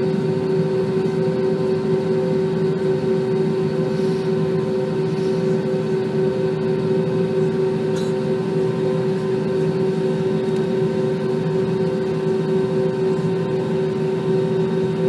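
Steady cabin drone of an Airbus A320 in flight: engine hum with a couple of held tones over the rush of air. A single faint click about eight seconds in.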